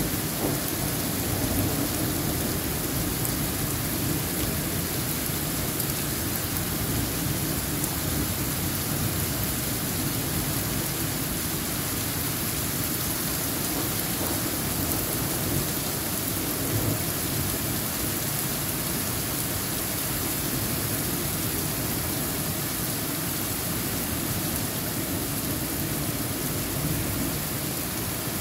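Heavy rain pouring down steadily during a thunderstorm, an even, dense hiss that holds the same level throughout.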